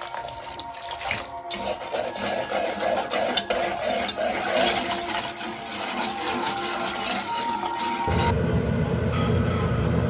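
Water pouring from a cup into a pot of rice flour and salt, splashing and clinking as a utensil stirs the mixture. About eight seconds in it gives way suddenly to a steady low rumble as the pot of rice-flour water heats on high heat on the stove.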